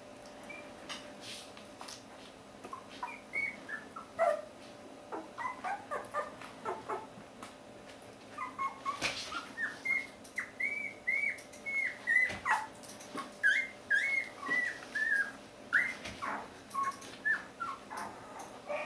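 One-week-old Border Collie puppies squeaking and whimpering: a run of short, high-pitched cries that starts a few seconds in and comes thick and fast through the middle.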